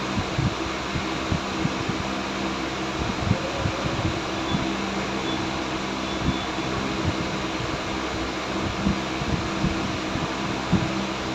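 A steady mechanical whirring hum, fan-like, with faint irregular ticks and taps scattered through it.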